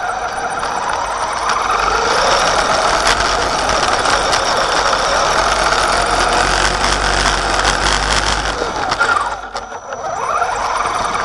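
Axial Wraith RC truck's electric motor and two-speed gearbox (in high gear) whining under throttle, picked up by a camera mounted on the truck, with knocks and rattles as it runs over rough ground. About nine seconds in the whine drops away as the throttle is let off, then rises again as it accelerates.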